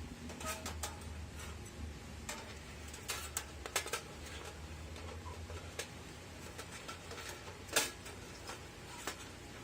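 Light metal clicks and taps of sheet-metal wood-stove parts being handled and fitted together, scattered irregularly, with a quick cluster about three to four seconds in and one sharper knock near eight seconds.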